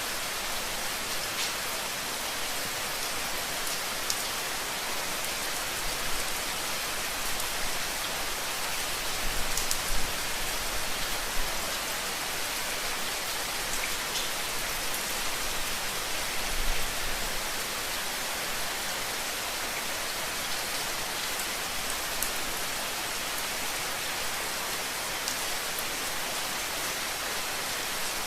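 Steady rain falling, an even hiss with scattered drop ticks and a few soft low thumps.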